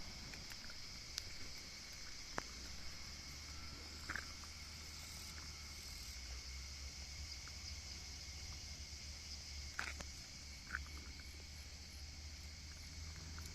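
Rural ambience in light drizzle: a steady high insect drone over a low steady rumble, with a few scattered sharp ticks and short chirps, the strongest about ten seconds in.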